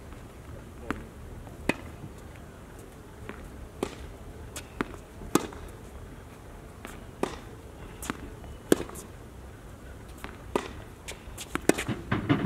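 Tennis rally on a hard court: sharp pops of rackets striking the ball and the ball bouncing, one every second or so, with a quicker cluster of knocks near the end.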